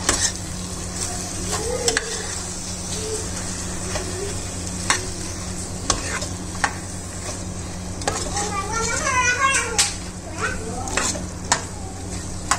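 Chicken pieces coated in masala sizzling as they fry in ghee in a pan, while a spoon stirs them and knocks against the pan every second or two.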